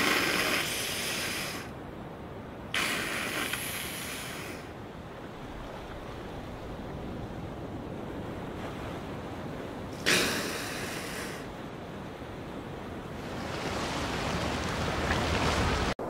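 Rushing, splashing water like surf: three sudden surges, each fading over a second or two, and a slower swell building near the end.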